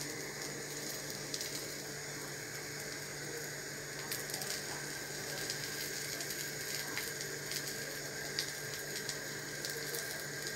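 A pizza on a bread-and-egg base frying in a non-stick pan on the stove: a low, steady sizzle with scattered small crackles and ticks, over a steady low hum.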